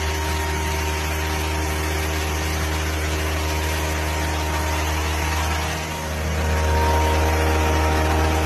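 A motor running steadily with a low, even hum. It dips briefly about six seconds in, then runs a little louder.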